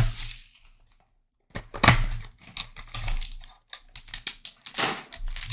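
Cardboard packaging of a Panini Prizm Choice trading-card box being handled and opened: scattered rustles, snaps and crinkles of card stock, with a brief pause about a second in.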